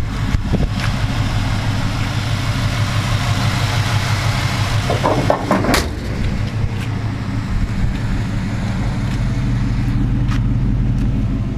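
1987 Chevy C10 pickup's 305 small-block V8 idling steadily, with a sharp click about halfway through.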